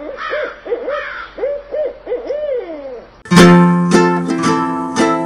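An owl hooting in a quick run of short rising-and-falling hoots, the last one drawn out and falling; about three seconds in, ukulele music starts.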